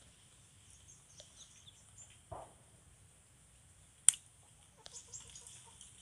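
Quiet tool handling: a single sharp click about four seconds in, then a quick run of small clicks, from a utility knife being picked up and its blade slid out. Faint chirps and a short rustle come earlier.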